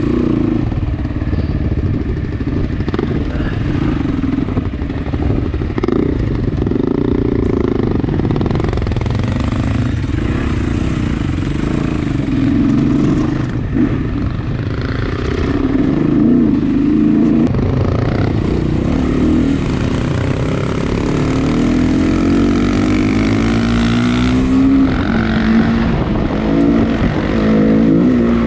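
Off-road dirt bike engine running continuously, its pitch rising and falling with the throttle as the bike is ridden along the trail.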